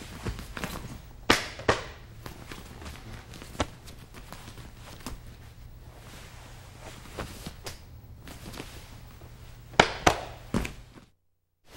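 Thuds and slaps of bodies and feet on a training mat during a jiu-jitsu self-defence demonstration, with shuffling between them: two sharp hits about a second and a half in, another near the middle, and three in quick succession near the end. A steady low hum runs underneath, and the sound cuts out for a moment just before the end.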